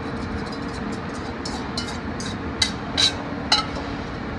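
Spatula and whisk clinking against a metal mixing bowl as whisked eggs are scraped out into the omelet pan. A quick run of light metallic clinks, the loudest three in the second half, over a steady background hum.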